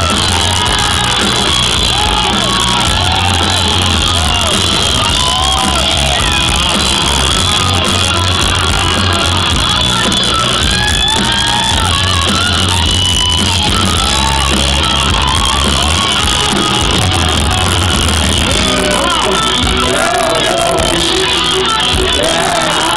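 Live rock band playing loud, with electric guitar over bass and drums, and the crowd shouting along.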